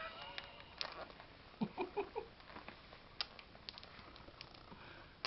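Small marbles clicking lightly against each other and on a plastic play mat as a toddler handles them, in scattered single taps, with a brief soft vocal sound about two seconds in.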